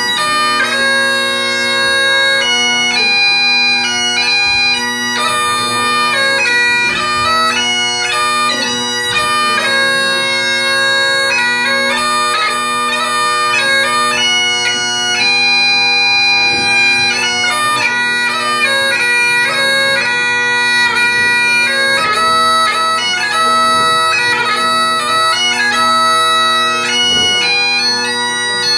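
Great Highland bagpipes played solo: the steady drones sound under the chanter's stepping melody, which is broken by quick ornamental grace notes.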